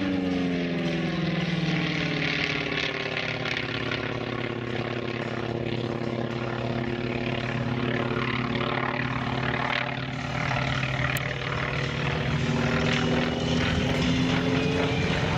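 North American B-25 Mitchell's two Wright R-2600 radial engines running at taxiing power. The engine note drops in the first couple of seconds, holds steady, and rises again near the end.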